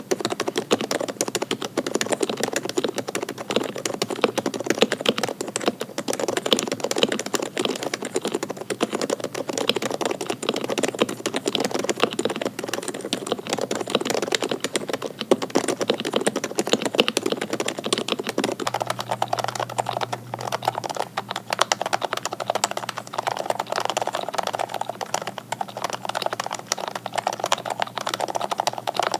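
Fast, continuous typing on custom mechanical keyboards: dense clacking keystrokes. About two-thirds of the way through, the sound changes character, losing some of its deeper body.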